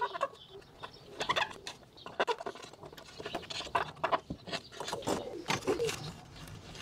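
A cotton bud scrubbing in the recesses of a chromed plastic badge, a quick run of scratchy clicks and rubs, and a cloth wiping over the badge near the end. A pigeon coos in the background.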